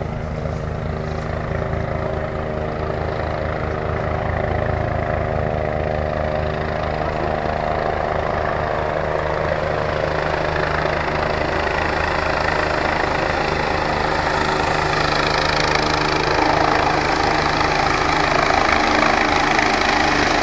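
Rescue helicopter approaching low overhead, its rotor beat growing steadily louder; a high turbine whine comes in about halfway through.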